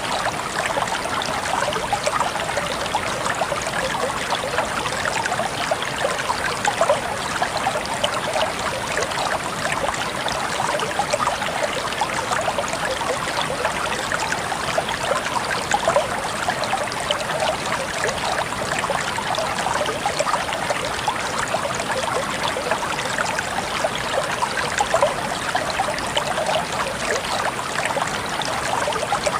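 Calm water flowing steadily, an even rush with many small splashes.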